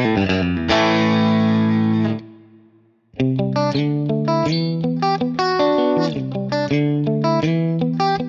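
Yamaha Pacifica Professional electric guitar played clean. A chord on the middle and bridge pickups (coil split) rings and is stopped about two seconds in. After a second of near silence, a new phrase of picked notes and chord fragments starts on the coil-split bridge pickup alone.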